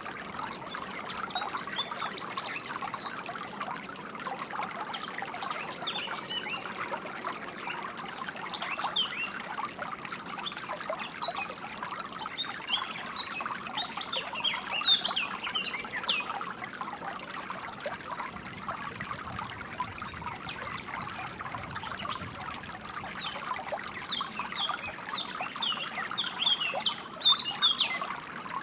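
Small stream trickling steadily over stones, with birds chirping in quick bursts of short, high notes, busiest around the middle and again near the end.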